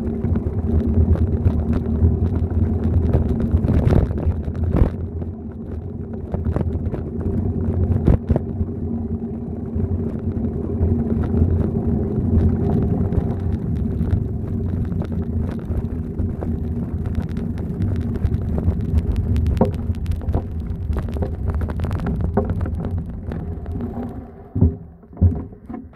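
Bicycle ridden over block paving: a steady low rumble of wheels and wind on the microphone, with frequent rattles and knocks from bumps. The rumble falls away a couple of seconds before the end, leaving a few separate knocks.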